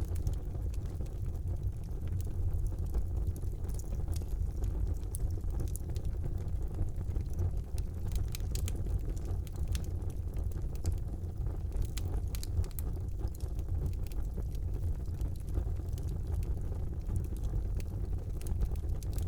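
Wood fire burning in a fireplace: a steady low rumble of the flames with scattered sharp crackles and pops.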